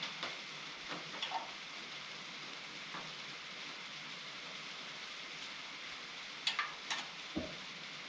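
Steady hiss with a few light clicks, then three sharper metallic clicks or knocks near the end, from tools and parts while bolting an extra log clamp onto a sawmill.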